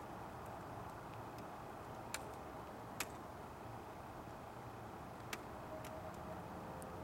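Snowmaking guns on a ski slope hissing steadily in the distance. A few sharp clicks stand out, about two, three and five seconds in.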